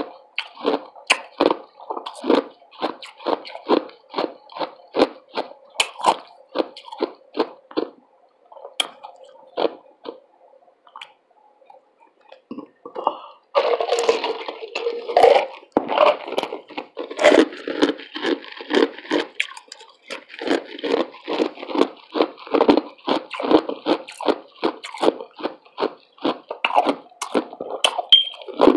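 Ice chewed and crunched close to the microphone, a run of crisp crunches two or three a second. It thins out for a few seconds; then, about 13 seconds in, a rush of ice tipped from a cup into the mouth comes, and the crunching resumes.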